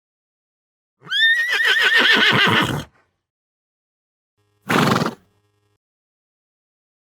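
A horse whinnying: one long neigh of about two seconds with a quavering pitch that trails down, then a single short noisy burst a couple of seconds later.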